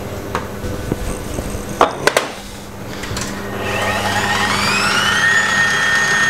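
Electric stand mixer's motor driving a pasta roller attachment: switched on about three and a half seconds in, its whine rises in pitch for about two seconds, then holds steady at full speed. Before it, a few sharp knocks from the dough being flattened by hand.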